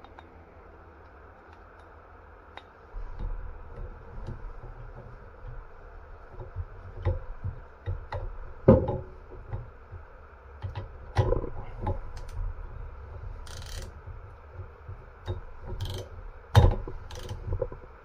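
Hand tools and a metal marine distributor being handled on a towel-covered bench: irregular clinks, scrapes and knocks as a socket wrench is worked onto the nut that holds the rotor, beginning about three seconds in, with three louder sharp knocks.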